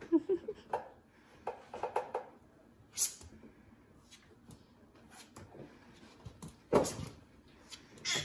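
Scattered knocks and clicks of someone working at a kitchen counter, the loudest a sharp knock about three-quarters of the way through. In the first two seconds there are a few soft, low clucks from a rooster.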